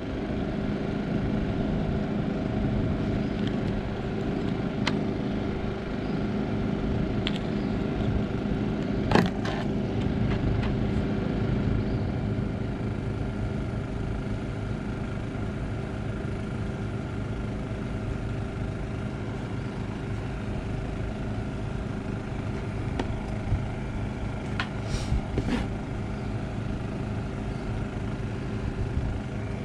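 Steady engine-like hum, with a few light clicks and taps from handling small plastic valve parts; the sharpest click comes about nine seconds in, and two more near the end.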